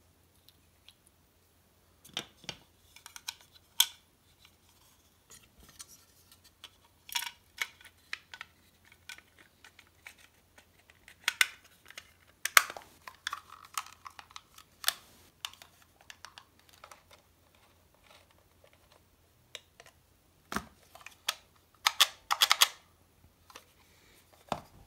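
Hard plastic model-kit parts being handled and snapped together: scattered clicks, knocks and snaps as a red button piece is fitted into the plastic display-stand base.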